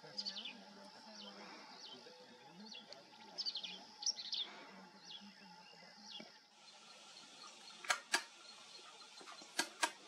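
Black-capped vireo singing: short, quick, downslurred high notes in small clusters. Near the end it stops, and four sharp clicks follow in two pairs.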